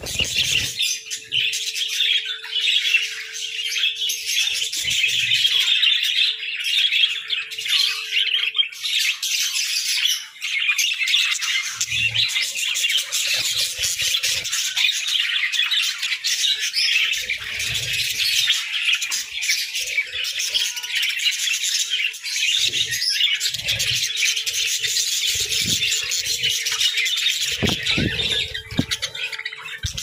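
A flock of budgerigars chattering and chirping continuously, a dense, high-pitched mix of many birds calling at once.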